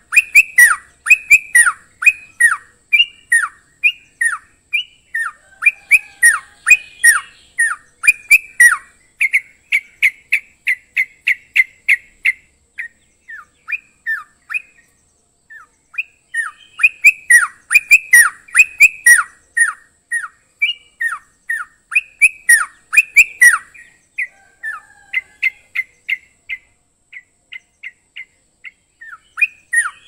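Yellow-vented bulbul in full song, a rapid run of short, sharp calls with each note sliding downward. The calls come in two dense bouts, with sparser calls around the middle and near the end.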